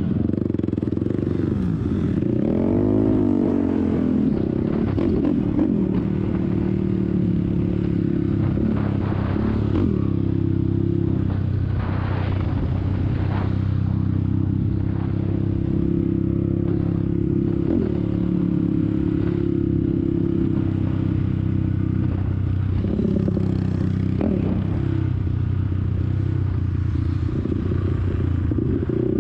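Single-cylinder sport quad's engine running under the rider at low, steady throttle, with the pitch rising and falling a few times, above all a few seconds in and again near the end. Light rattling from the machine runs over the engine.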